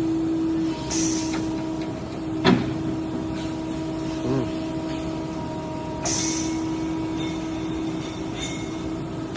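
HEM V100LA-3 vertical band saw running under power with a steady hum, and a single sharp click about two and a half seconds in.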